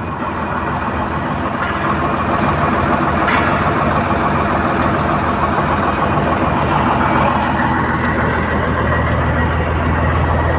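Diesel engine of a truck-mounted concrete pump running steadily.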